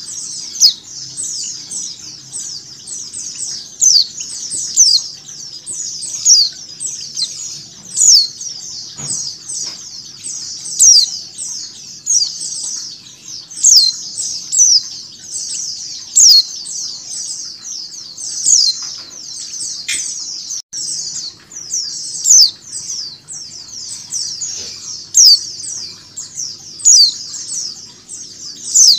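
A flock of white-eyes (pleci) chirping together: a dense, continuous chatter of high, quick down-slurred notes, with a louder, sharper chirp standing out about once a second. It is the group sound used to draw a caged female white-eye into calling.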